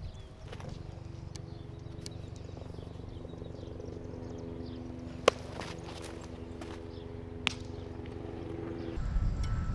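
A baseball popping into a leather glove twice, sharp cracks about five and seven and a half seconds in, the first the louder, over a steady low hum of several held tones.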